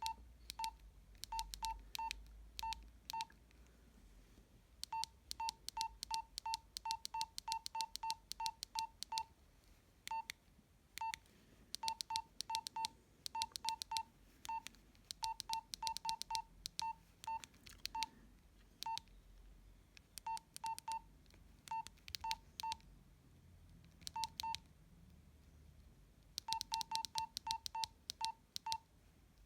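Nokia 112 keypad tones: short beeps, all at the same pitch, each with the click of a key, as buttons are pressed in quick runs of several a second broken by pauses.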